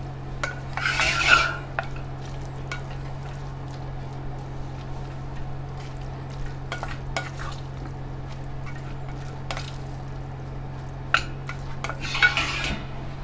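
Spoon stirring butter into Kraft Dinner macaroni in a metal pot: soft scraping and light clinks, louder about a second in and again near the end, over a steady low hum.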